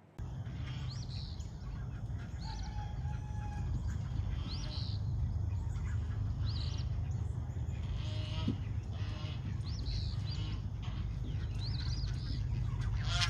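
Chickens calling: short high calls about once a second, with two longer held notes, over a steady low rumble.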